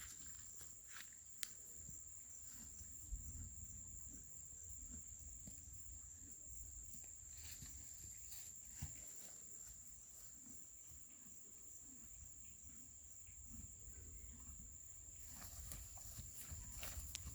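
Faint outdoor ambience: scattered soft steps and rustles over a low rumble, with a constant high-pitched tone.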